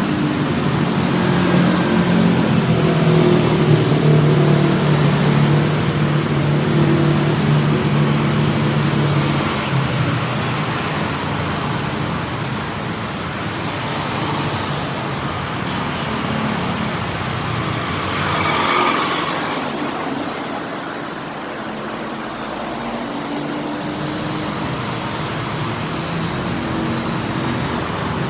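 City street traffic: a vehicle engine runs close by with a steady hum for the first ten seconds or so, then fades into a continuous wash of passing motor traffic, with one vehicle passing louder about two-thirds of the way through.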